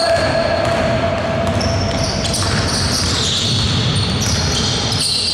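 Basketball being dribbled on an indoor hardwood court during play, over steady gym noise with thin high tones that come and go.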